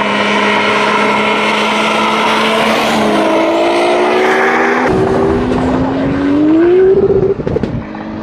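Toyota Supra engine held at steady revs, then climbing in pitch as the car accelerates. Near the end the revs drop with a few crackles.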